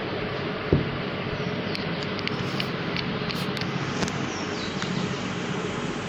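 Steady background hiss and hum, with one sharp knock a little under a second in and a few faint ticks later, from a handheld camera being moved and then steadied.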